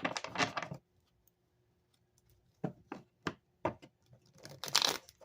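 Tarot cards being handled on a table: four light clicks and taps about a third of a second apart, then a brief papery rustle near the end.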